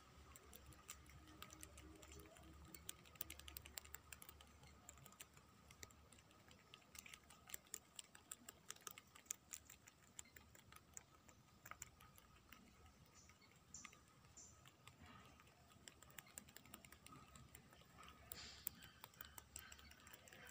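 A domestic rabbit chewing a green leaf close up: quick, irregular crisp clicks and crunches, several a second, over a faint background.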